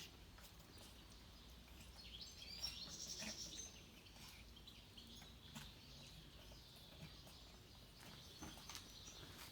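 Small birds chirping faintly, a quick run of high chirps about two to three and a half seconds in, over quiet outdoor background noise with a few faint clicks.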